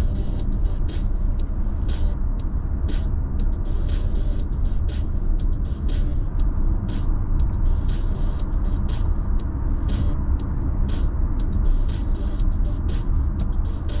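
Steady low rumble of road and engine noise inside a Mazda's cabin as it cruises at freeway speed. A short high hiss recurs about once or twice a second.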